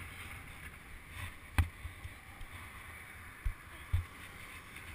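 Wind and road noise on a microphone held outside a moving car's side window: a steady rushing hiss over a low rumble, broken by a sharp knock about a second and a half in and two dull thumps near the end.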